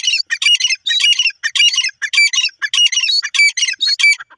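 Grey francolin calling: a loud run of high-pitched, repeated phrases, about two a second, one after another without a break.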